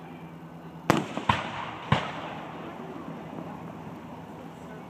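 Aerial fireworks shells bursting: three sharp bangs in quick succession about a second in, each trailing off in an echo.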